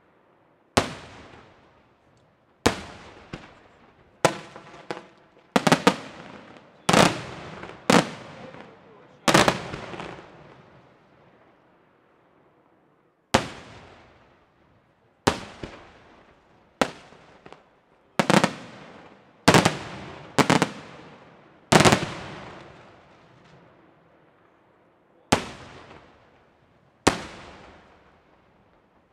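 Senatore Fireworks aerial shells bursting one after another, about seventeen sharp bangs at uneven intervals. Each bang is followed by a long echoing fade, and there is a pause of about three seconds near the middle.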